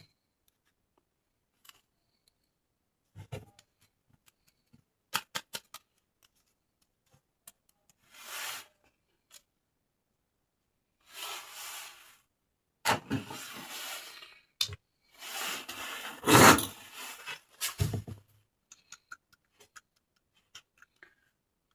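Handling of plastic toy packaging: scattered clicks and taps, then several bursts of rustling and scraping lasting a second or two each, the loudest about three-quarters of the way through.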